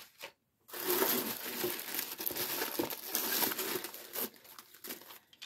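Tissue paper crinkling and rustling as hands dig through it, starting just under a second in and lasting about three and a half seconds, then a few light handling clicks.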